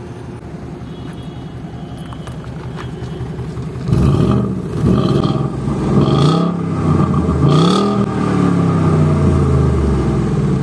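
Ford Mustang GT's 5.0 V8 exhaust, recorded close to the tailpipe: idling, then from about four seconds in revved several times, the pitch climbing and falling with each blip of the throttle, before settling back toward idle near the end.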